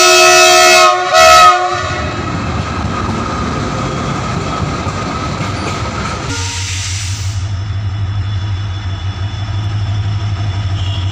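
A diesel locomotive's horn sounds a steady multi-tone blast that stops about a second and a half in, then a freight train rumbles past with its wheels clattering on the rails. About six seconds in the sound switches to a diesel locomotive's engine running with a steady low drone.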